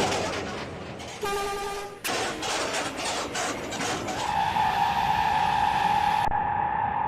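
Bus engine and vehicle noise, with a short single-note horn blast a little over a second in. From about four seconds a steady held tone begins and carries on.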